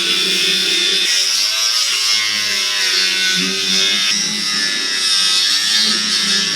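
A handheld power tool running continuously with a high buzzing whine, its pitch wavering up and down as it works the metal.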